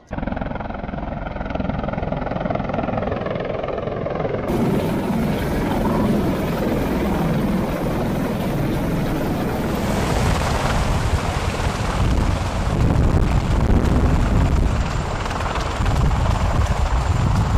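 Military rotorcraft running loud at close range: a continuous heavy rotor and turbine din, strongest in the low end. The sound shifts abruptly brighter about four and a half seconds in, where the footage changes.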